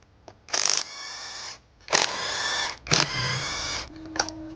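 A power tool such as a cordless drill or electric ratchet runs in three short bursts of about a second each, undoing bolts during engine teardown, with a few sharp metallic clicks near the end.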